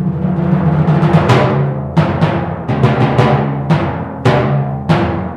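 Timpani roll swelling, then a run of hard single strokes that imitate the hunters' gunshots, with the drums ringing on and fading near the end.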